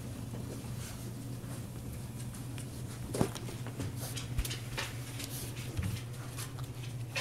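Puppies' paws and claws pattering and clicking on the floor and rug as they move about sniffing, with a single thump about three seconds in, over a steady low hum.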